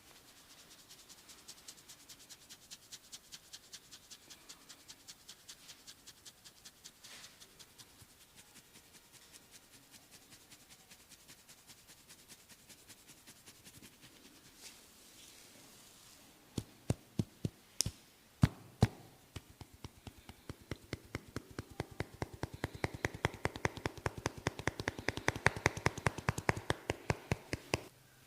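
Massage percussion: hands tapping and slapping on a person's body in a fast, even rhythm. Faint quick taps through the first several seconds, then a few sharp, loud slaps a little past the middle, then a long run of fast strikes that grows louder near the end.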